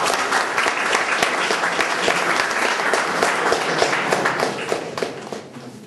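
Audience applauding: a dense run of clapping that fades away near the end.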